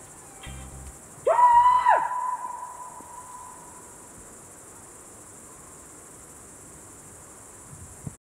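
Crickets chirring steadily in a high, even band. About a second in a loud swooping tone rises and falls, then rings on as one held note that fades over about two seconds. Everything cuts off suddenly near the end.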